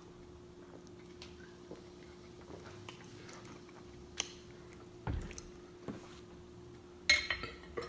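Quiet mouth sounds close to the microphone: a few small clicks and smacks, a brief low thump about five seconds in, and a louder short burst near the end, over a faint steady hum.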